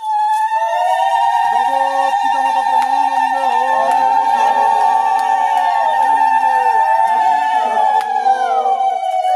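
Several conch shells blown together in long, steady, overlapping blasts, starting suddenly, with their pitches bending and sliding down near the end.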